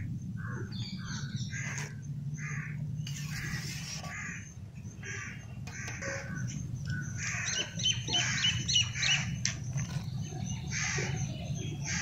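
Crows cawing again and again, with a quick run of high bird chirps about eight seconds in, over a steady low background hum.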